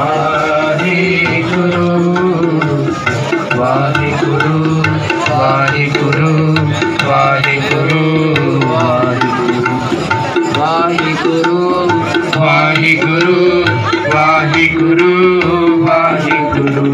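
Sikh devotional kirtan: a voice singing a hymn over tabla, with steady sustained tones beneath the melody.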